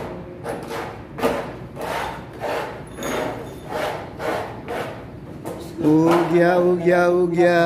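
Repeated short strokes of a hand tool worked at the base of a submersible pump, about one and a half a second. Near the end, a man's voice holds one long, wavering note for about two seconds, louder than the tool strokes.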